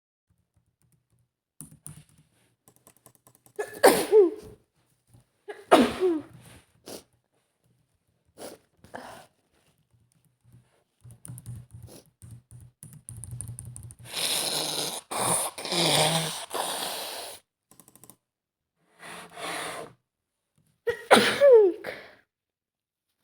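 A woman with a cold sneezes twice, about two seconds apart. She then blows her nose hard for a few seconds and sneezes once more near the end.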